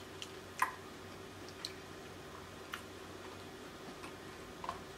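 A few faint, wet clicks and squelches, the clearest about half a second in, as fingers work a piece of lobster meat in a bowl of sauce and lift it out.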